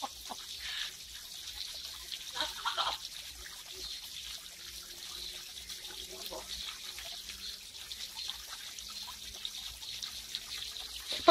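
Pond water trickling and lapping steadily, the water stirred by a frog kicking in the grip of a grass snake at the pond's lined edge.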